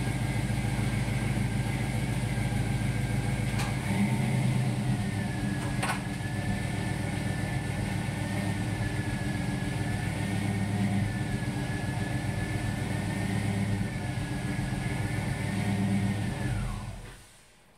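Chevrolet LS1 V8 engine idling steadily with a high whine over it, then shut off: the sound cuts off suddenly near the end. Two sharp clicks come about four and six seconds in.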